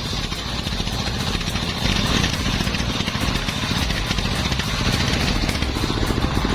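An engine-driven machine running steadily, with a low, rapid pulsing.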